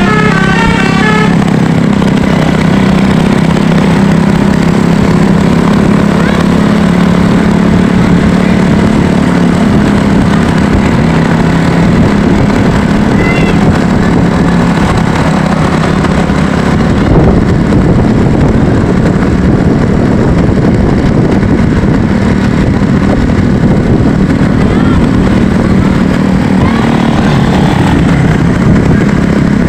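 A multi-tone telolet horn's stepping melody cuts off about a second in. Loud, steady vehicle engine and traffic noise with a strong low hum follows and continues.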